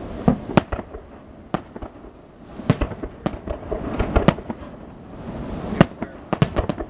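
Fireworks going off: many sharp bangs and pops at irregular intervals, some in quick crackling clusters.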